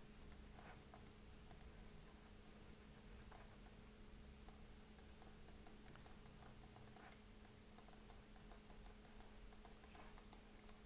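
Faint, sharp clicking of computer input while curve strokes are drawn in Blender: sparse at first, then several clicks a second from about halfway. A faint steady hum lies underneath.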